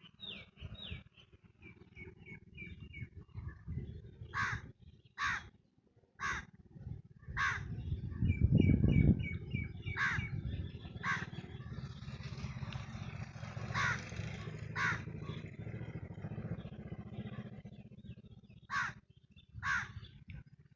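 Crows cawing, about ten calls mostly in pairs about a second apart, with small birds chirping faintly. A low rumble runs underneath, loudest about eight to nine seconds in.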